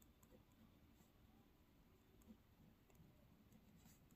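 Near silence: room tone with a few faint, light ticks.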